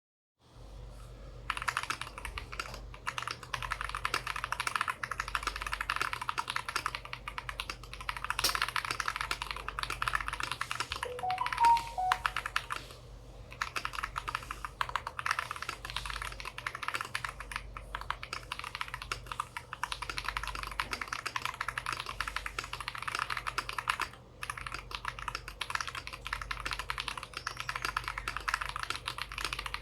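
KBD67 Lite R2 mechanical keyboard with stock Holy Panda tactile switches, PE foam mod and silicone dampening, typed on fast and continuously: a dense stream of keystrokes with brief pauses about thirteen and twenty-four seconds in. A short three-note rising tone sounds a little before the first pause.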